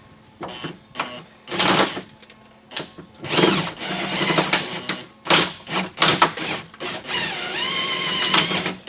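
Cordless drill run in short bursts, then a longer run near the end, as an 11/32-inch bit is eased slowly through a plastic-free door wire-harness clip.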